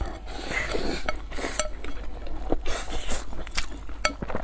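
Wooden chopsticks clicking and scraping against a ceramic bowl many times, with a couple of noisy slurps of noodles eaten straight from the bowl's rim.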